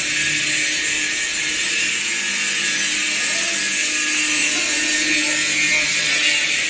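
Water gushing and splashing out of a stainless-steel paddle mixer's tub onto a concrete floor, a steady loud hiss, with a low steady hum from the mixer's drive running underneath.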